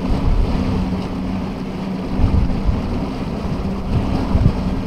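Bass boat's outboard motor running at speed, a steady drone, with wind buffeting the microphone and a few low thumps about two and four and a half seconds in.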